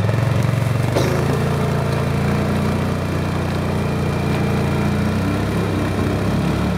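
ATV engine running steadily under load as the quad drags a bull moose carcass through mud and long grass, with a brief knock about a second in.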